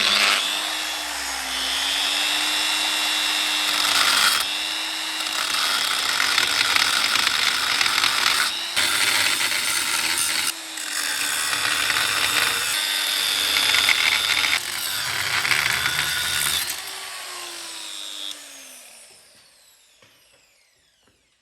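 Angle grinder cutting into the steel rear axle housing of a VAZ to open it for welding the differential, its motor whine wavering under load and a loud hiss of the cut, easing off briefly a few times. Near the end it is lifted off and winds down with a falling whine.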